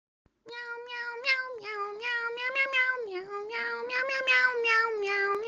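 Domestic cat giving one long, drawn-out meow that wavers up and down in pitch and tone without a break.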